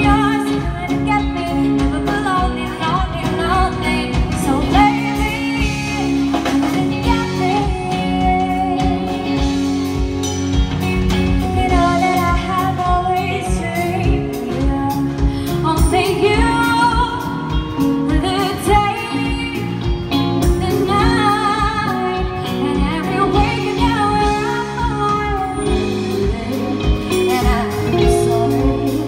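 Live pop band: a woman sings lead over electric guitar, bass guitar, drums and keyboard.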